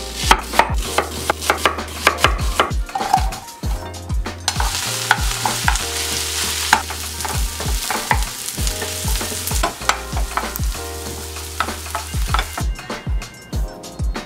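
A knife slicing through onions on a wooden cutting board, a quick run of sharp cuts over the first few seconds. Then sliced onions sizzle in a frying pan on medium-low heat as they caramelize, stirred and scraped with a wooden spatula; the sizzle stops near the end. Background music with a steady beat runs underneath.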